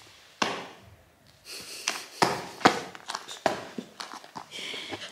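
A crawling baby's close breathing and sniffing, broken by several sharp slaps and taps, the kind made by hands patting a tiled floor.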